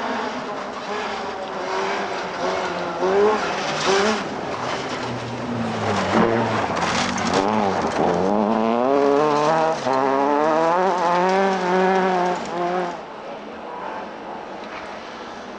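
Rally car at full throttle on a loose stage, its engine note rising and falling with gear changes as it comes through, with a few sharp cracks and tyres skidding on the loose surface. The sound falls away about two seconds before the end as the car moves off.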